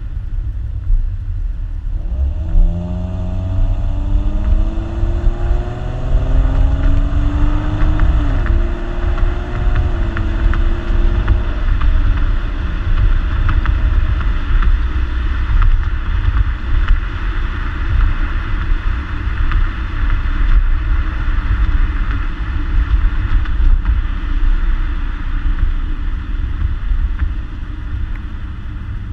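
2014 Ford Mustang's 3.7-litre V6 on its stock exhaust, accelerating with a rising engine note from about two seconds in, dropping in pitch at an upshift about eight seconds in. The engine note then fades under a steady low road rumble as the car cruises.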